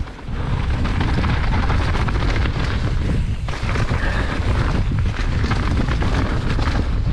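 Mountain bike ridden fast down a dirt trail, heard from the rider's camera: wind buffeting the microphone over a steady rumble of tyres on dirt and short knocks and rattles as the bike hits bumps and roots.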